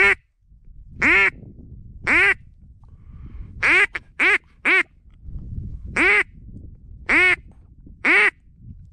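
Duck call imitating a mallard hen: nine loud quacks, mostly single and about a second apart, with a quick run of three near the middle, used to lure mallard drakes.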